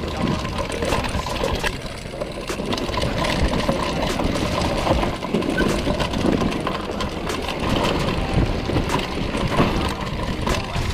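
Mountain bike riding down a rough, stony trail, picked up by a camera on the bike: a constant rumble of wind and tyres, with rapid knocks and rattles as the bike jolts over the ground.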